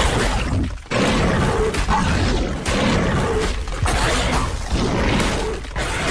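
Made-up creature sound effect for an infected (zombie) sauropod: a run of loud, rough roars and growls, one after another, with a brief break just before a second in and another near the end.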